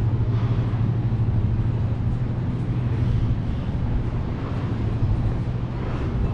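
A steady low engine hum that does not change, over a rough outdoor city background.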